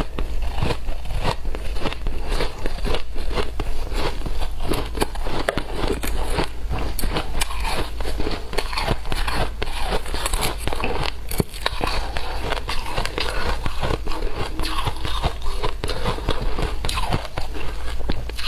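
Shaved ice being bitten and chewed close to the microphone: a dense, continuous, irregular crunching and crackling, over a faint low hum.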